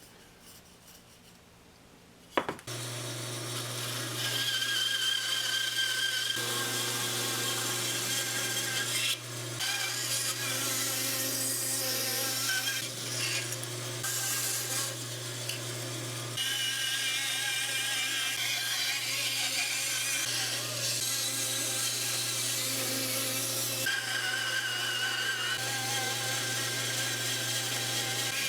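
An electric shop power tool switched on with a click about two seconds in, then running with a steady motor hum while working wood, the cutting noise rising and falling with the load.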